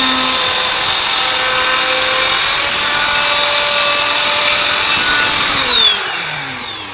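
Electric power tool running at high speed with a steady high whine, rising slightly in pitch partway through. About six seconds in it is switched off and winds down, the whine falling in pitch as it fades.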